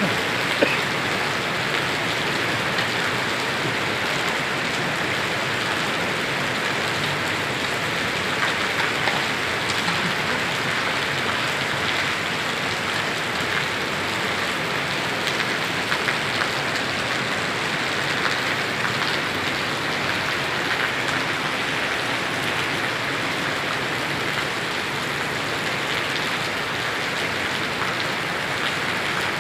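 Heavy rain pouring down, a steady even hiss of downpour with scattered drops pattering on hard surfaces.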